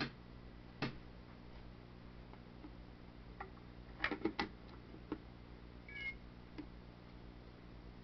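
An iPod being pushed onto the docking connector of an i-Piggy speaker dock: a quick cluster of clicks and knocks about four seconds in, with a few single clicks before and after. A short electronic tone sounds about two seconds after the cluster.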